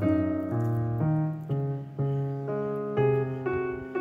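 Background piano music, with notes and chords changing about twice a second.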